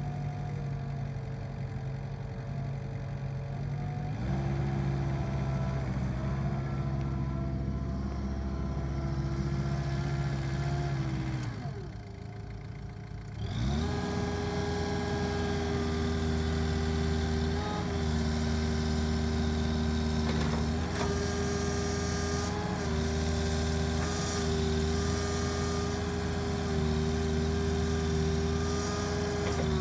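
Diesel engine of an IHI 40JX tracked mini excavator running while the machine is worked: it speeds up about four seconds in, sags and slows briefly around twelve seconds, then picks up to a higher steady speed with small dips in pitch as the hydraulics take load during swinging and boom moves.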